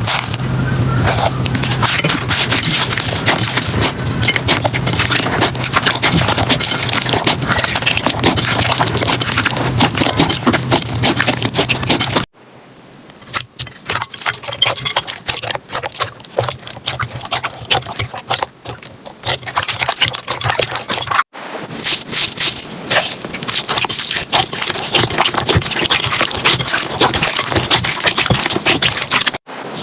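Hands squishing, poking and stretching slime, making dense, irregular crackling, popping and squelching clicks. The sound cuts off abruptly and restarts twice, about 12 and 21 seconds in, as one slime clip gives way to the next.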